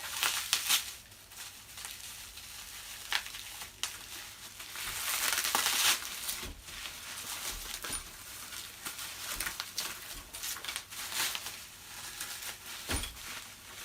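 Packaging crinkling and rustling as bags of small parts are handled and pulled at to open them, with scattered clicks and a longer, louder rustle about five to six seconds in.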